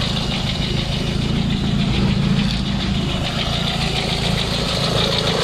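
Proton Wira 1.5's four-cylinder engine idling steadily, with the rough running noise of a worn alternator bearing coming from the front of the engine.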